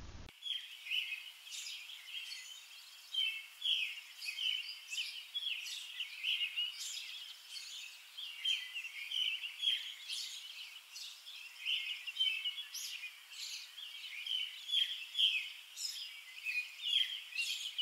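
Songbirds chirping and singing, many short calls and trills one after another. They start suddenly just after the beginning.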